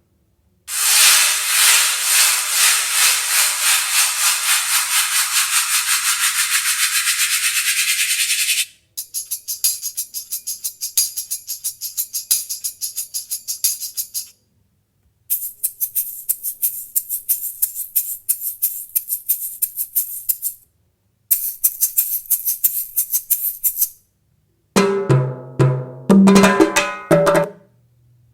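Hand percussion in separate short takes: a long tambourine-like shaking rattle, then three runs of fast shaker beats with brief gaps between them, and near the end louder pitched drum hits.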